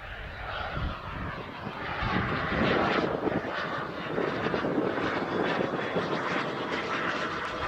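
Model jet turbine of a 1:4 scale Yak-130 RC jet flying overhead, a steady rushing jet noise that grows louder over the first couple of seconds as the plane comes closer, then stays loud.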